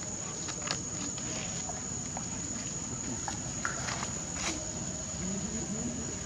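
A steady high-pitched insect drone, with scattered light rustles and clicks as young monkeys scamper over dry leaves and dirt.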